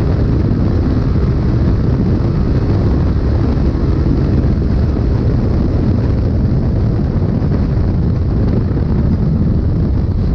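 Polaris RZR race UTV at speed, heard from inside the cab: a steady, loud mix of engine, drivetrain, road and wind noise.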